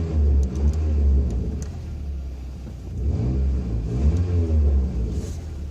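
Toyota pickup's engine revved twice, its pitch rising and falling over a low exhaust rumble. The exhaust leak at the header has been patched with exhaust wrap.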